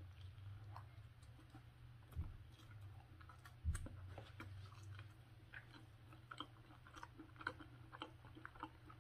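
Faint chewing of a bite of beef sausage hot dog on a soft bun, with scattered small mouth clicks. Two soft low thumps come about two and three and a half seconds in.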